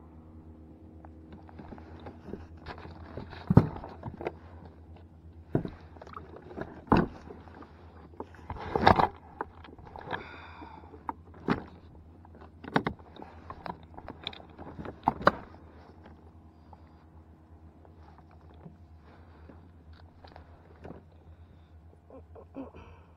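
Irregular knocks, clunks and scrapes of gear being moved around on a plastic fishing kayak, several sharp ones between about 3 and 16 seconds in, over a steady low hum.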